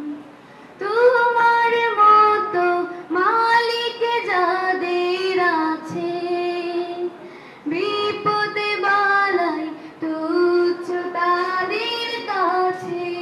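A girl singing an Islamic ghazal solo into a handheld microphone, in long held phrases that slide between notes, with short breath pauses between lines.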